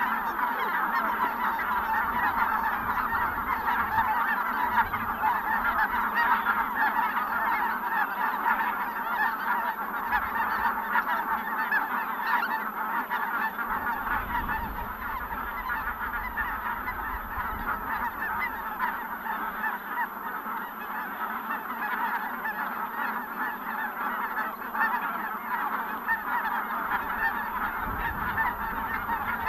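A large flock of geese, Ross's geese foremost, calling all at once in a dense, unbroken chorus of honking.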